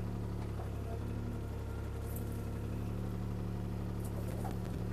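CAT 303C CR mini excavator's diesel engine running steadily while the arm is worked against a tree.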